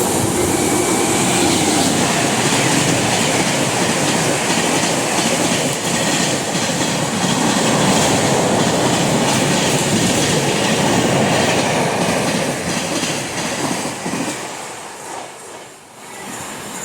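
Express train passing close by at speed: a loud, steady rush and clatter of wheels on the rails. The noise falls away about fourteen seconds in as the train goes by.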